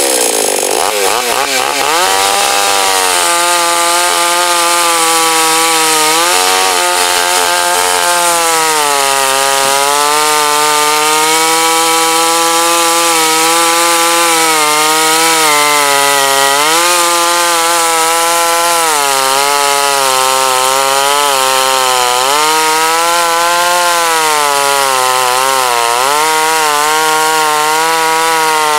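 Gasoline two-stroke chainsaw cutting wood: the engine's pitch drops near the start, climbs back to high revs about two seconds in, then keeps sagging and recovering as the chain loads up in the cut.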